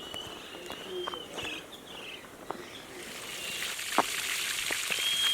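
Outdoor trail ambience: a thin, wavering, whistled bird call at the start and again near the end, a few scattered footstep-like ticks, and a steady hiss that grows from about halfway.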